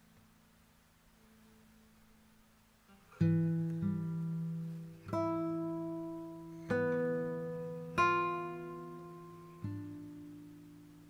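Background music: a guitar strummed slowly, about six chords from three seconds in, each left to ring out, after a few seconds of faint held notes.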